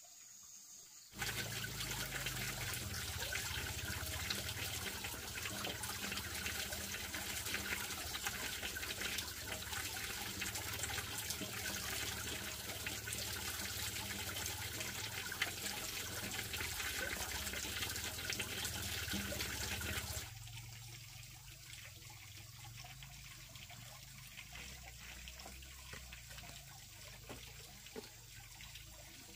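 Running, splashing water that starts abruptly about a second in and drops suddenly to a quieter trickle about twenty seconds in.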